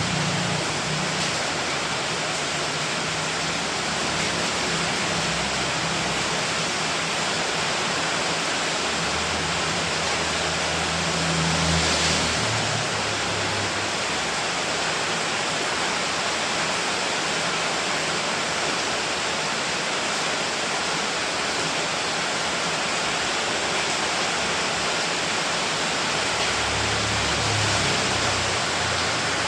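Steady heavy rain, a dense even hiss, with a soft low rumble that swells now and then.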